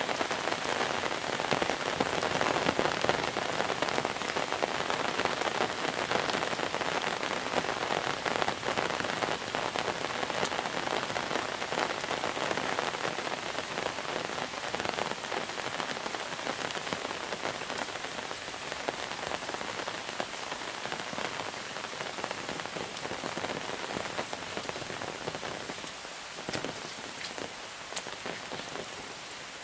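Monsoon rain falling steadily: a dense, even hiss of rain flecked with the ticks of single drops, easing slightly toward the end.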